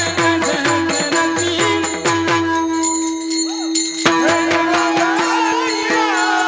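Varkari bhajan music: pakhawaj drum strokes and small hand cymbals keep a steady rhythm over a held drone note. The drum drops out for about a second and a half midway, then comes back in, with singing.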